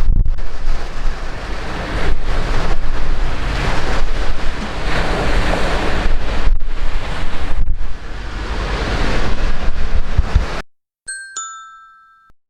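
Heavy typhoon surf crashing, with strong wind buffeting the microphone, cuts off abruptly near the end. A two-note chime follows, ringing out and fading.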